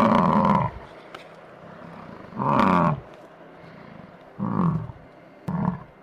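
Highland cow mooing: four short moos, the last one the briefest.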